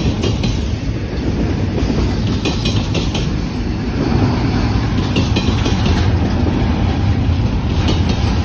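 Double-stack intermodal freight train rolling past: a steady rumble of steel wheels on rail, with a few sharp clicks and clanks from the passing well cars.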